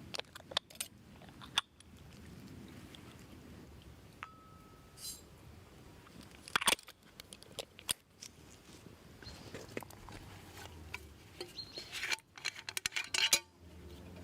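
Scattered sharp clicks, knocks and crunches of hands and tools at work during food preparation, with a quick run of them near the end.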